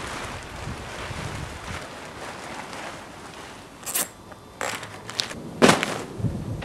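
Plastic tarp rustling and crinkling as it is handled. From about four seconds in come a few sharp clicks and snaps, the loudest near the end.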